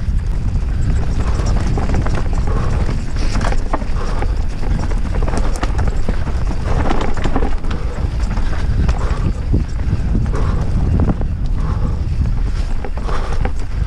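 Orbea Rallon R5 29er full-suspension mountain bike riding a rough dirt trail: tyres rumbling over the ground with continual irregular knocks and clatter from the bike.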